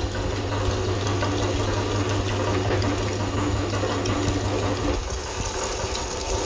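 Electric meat grinder running with a steady motor hum while grinding ice cream bars.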